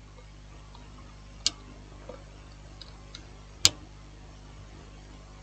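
Two short sharp clicks about two seconds apart as fingers press a Tecno phone's battery flex connector home onto its socket on the motherboard, with a few fainter ticks and a low steady hum underneath.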